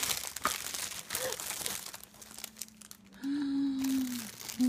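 Foil wrapping of a giant Kinder egg being crinkled and pulled apart by a toddler's hands, a dense crackling that is loudest in the first two seconds and then thins out. Near the end a short, steady, held voice-like tone is heard.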